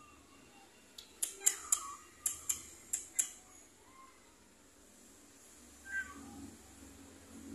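Domestic cats giving a few short, faint meows, one a little louder near the end. About a second in comes a quick run of about eight sharp clicks, louder than the meows.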